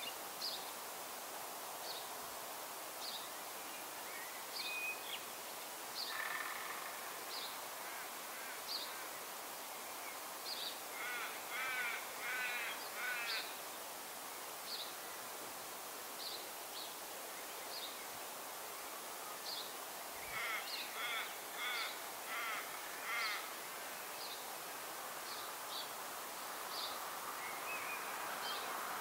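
Fledgling Australian magpie calls: two bouts of rapid, repeated harsh begging calls, one about a third of the way in and one about two-thirds through, each lasting a couple of seconds. Short high chirps repeat about once a second throughout.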